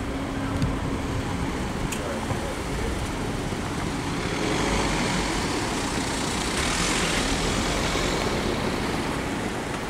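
Road traffic: a steady wash of traffic noise that swells louder as a vehicle passes about halfway through.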